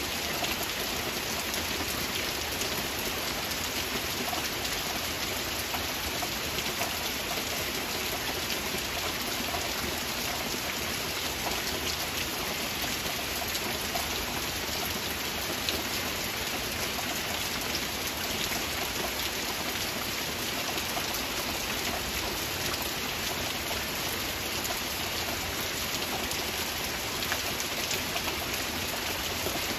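Steady heavy rain falling on forest foliage, an even hiss with scattered individual drops ticking close by.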